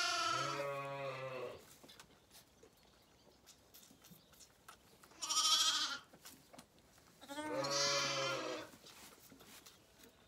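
Zwartbles lambs bleating: three bleats, the first and last long, the middle one shorter and higher.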